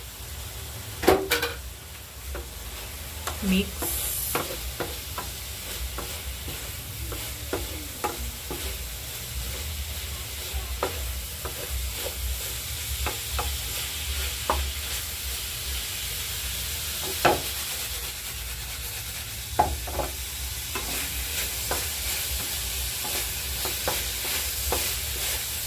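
Liver frying in a pan with onions and spices, sizzling steadily, while a spoon stirs it and now and then knocks or scrapes against the pan.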